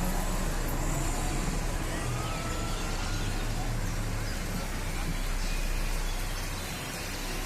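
Steady din of a large outdoor concert crowd between songs, over a low rumble from the stage sound system, with a few faint whistles.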